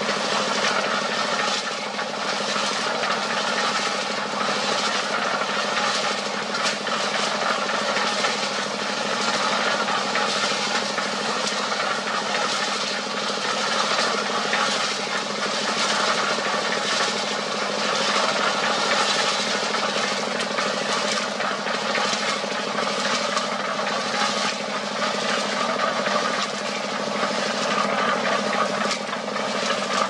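A diesel-engine-driven drum cement mixer runs steadily. The engine's constant note sits under a continuous gritty rattle of gravel, sand and cement tumbling in the turning drum.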